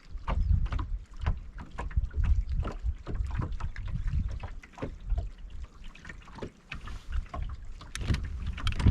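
Wind buffeting the microphone in gusts, with small waves slapping and knocking against the boat's hull in quick, irregular splashes.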